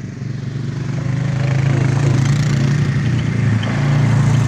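Small off-road vehicle engine running steadily, growing louder over the first two seconds as it comes closer.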